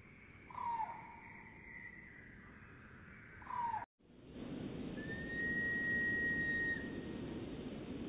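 Bird calls played slowed down. First come two short calls falling in pitch, about three seconds apart. Then, after an abrupt cut to another recording, a single long, steady whistled note.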